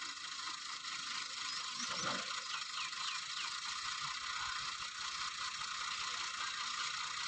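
Tractor-powered borehole drilling rig running, a steady, fast mechanical clatter with no let-up.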